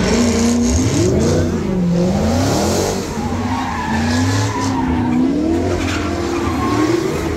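A car's engine revving up and down while its tyres squeal as it spins donuts, the engine pitch swooping up and falling again over and over.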